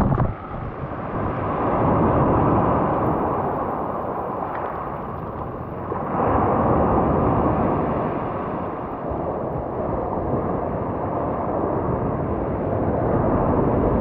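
Sea waves breaking and washing up over a pebble beach, a steady surf that surges louder a couple of seconds in, again sharply about halfway through, and once more near the end.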